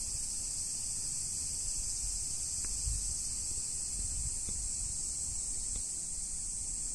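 Steady high-pitched drone of a chorus of insects, with an uneven low rumble underneath.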